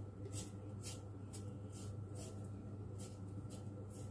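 Vegetable peeler scraping the tough outer skin off a celery stalk in quick repeated strokes, about two a second, over a low steady hum.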